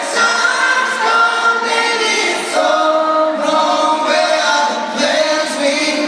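Live voices singing a cappella through an arena sound system, with held, gliding notes and no instruments or drums.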